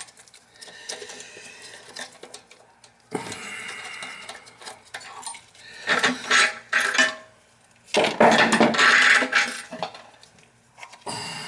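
Small loose hardware being handled, clinking and rattling, with two louder scraping or rustling bursts in the second half.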